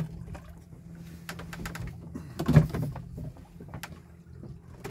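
Low hum of a MotorGuide R3-40 electric trolling motor running, with a few sharp clicks and one loud knock about two and a half seconds in.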